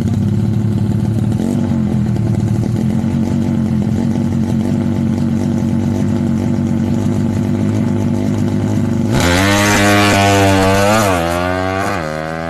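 Bored-up Kawasaki KLX drag bike engine idling steadily, then about nine seconds in it revs hard and pulls away. Its pitch climbs, drops at a gear change, and climbs again as it fades.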